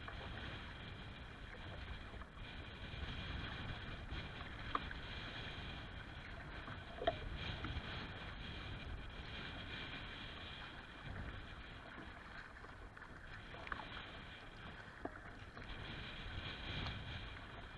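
Choppy lake water slapping and lapping against a kayak's hull, with wind rumbling on the bow camera's microphone. A few short sharp splashes or knocks stand out.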